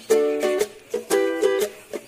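Background music: a light plucked-string tune, ukulele-like, with chords struck in an even rhythm about twice a second.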